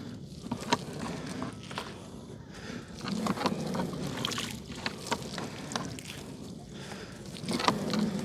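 Gillnet being hauled by hand into a small boat on the river: irregular clicks and knocks on the boat, with water sloshing.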